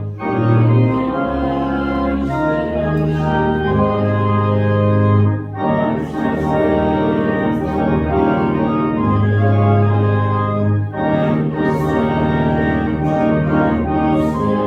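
Organ playing a hymn in sustained chords, with brief breaks between phrases about five and a half and eleven seconds in.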